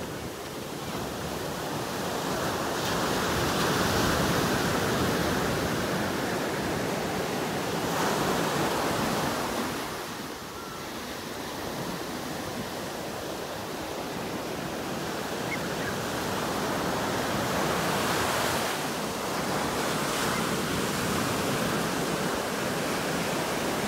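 Ocean surf: waves breaking and washing up a sandy beach, the rush swelling and ebbing with each wave, loudest about four seconds in and again near the middle and late in the stretch.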